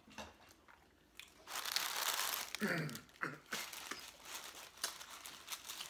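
Paper taco wrappers crinkling as a wrapped taco is picked from the pile: a long rustle about a second and a half in, then quick small crackles toward the end.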